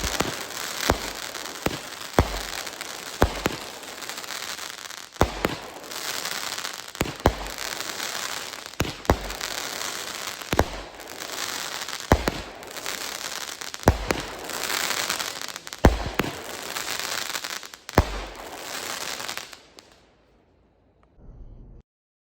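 AFW Binary Star 12-shot firework cake firing its shots one after another, a sharp bang every one to two seconds, with crackling and sizzling from the gold crackling tails filling the gaps. The barrage ends about 20 seconds in.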